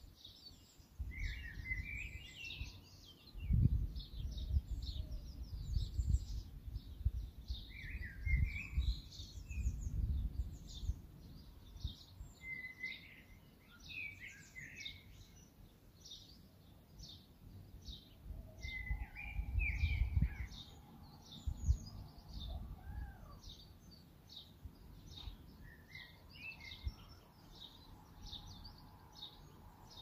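Small songbirds chirping and singing: quick high chirps keep coming, with a short warbling phrase every few seconds. Beneath them a low, uneven rumble comes and goes, stronger in the first two-thirds.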